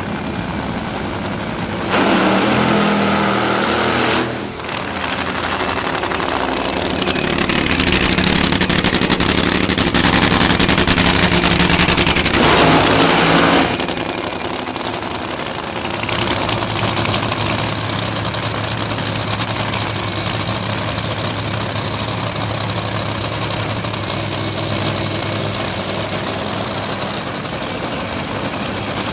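Supercharged nitro drag-racing engines. One runs hard in a loud burst about two seconds in, then an even louder stretch of full-throttle engine noise lasts from about seven to fourteen seconds. After that a Top Fuel dragster's engine idles steadily.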